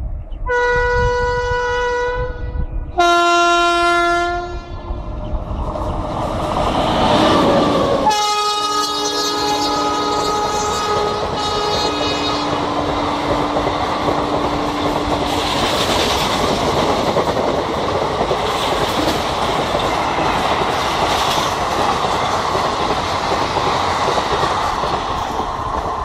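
WAP-5 electric locomotive's horn sounding in repeated long blasts, the pitch shifting between blasts. The horn goes on, several tones together, as the train draws level. From about five seconds in, the noise of the express coaches builds into a loud, steady rush and clickety-clack of wheels as they run past at speed.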